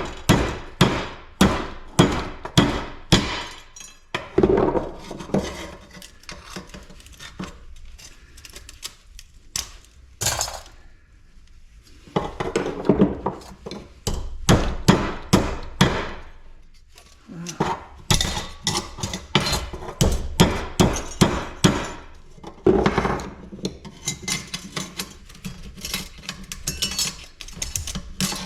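Hammer blows on metal, about two a second in runs of several strikes, with clanking and rattling between the runs, as parts are knocked off a scrap light fixture's extruded aluminum housing.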